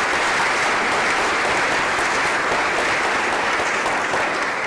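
An audience applauding, steady clapping that begins to thin near the end.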